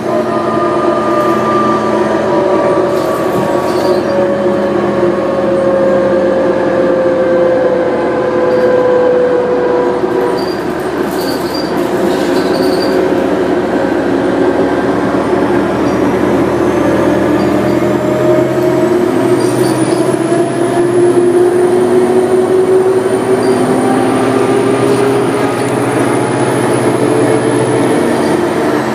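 New Flyer D40LF diesel city bus heard from inside while driving at speed: a drivetrain whine that slowly falls in pitch over the first ten seconds and rises again later, over steady engine and road noise. A thin high whine climbs in about two-thirds of the way through and holds until near the end.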